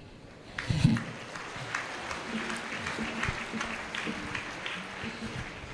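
Congregation applauding: steady, dense clapping that starts about half a second in and carries on for several seconds.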